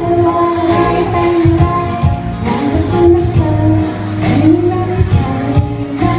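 A woman singing a Thai pop song live into a handheld microphone, holding long notes over pop backing music with bass and drums.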